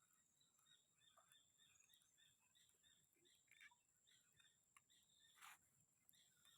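Near silence with faint bird chirps repeating several times a second and a faint steady high tone; one brief rustle about five and a half seconds in.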